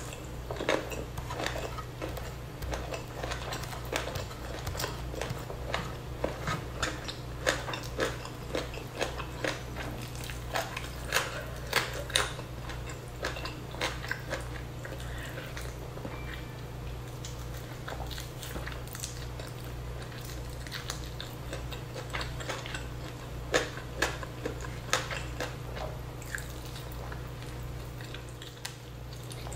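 Close-miked eating by hand: chewing and wet mouth clicks from mouthfuls of rice and duck meat, with fingers squishing rice on a wooden board. A steady low hum runs underneath.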